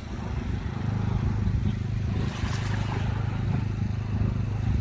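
Wind buffeting the microphone: a steady low rumble that flickers in strength.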